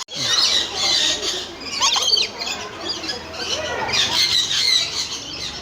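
Exotic park birds squawking and chattering, many short calls overlapping throughout.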